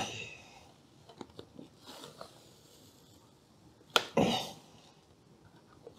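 Soft crinkling and faint clicks of a thin plastic headlight film being handled and pressed by hand, with a sharper click about four seconds in followed by a brief rustle.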